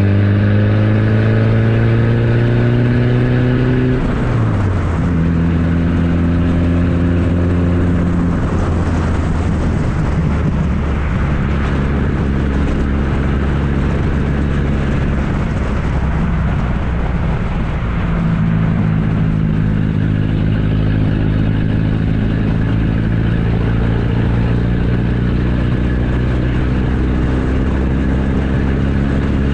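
A 1994 Ford Ranger's 2.3-litre four-cylinder engine running through a straight-piped exhaust. Its steady note drops sharply about four seconds in, turns rougher and less even for a stretch in the middle, then settles steady again.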